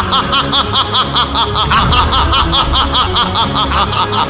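A man's long, drawn-out villain's laugh, a rapid, even string of 'ha' pulses, over a steady low music drone.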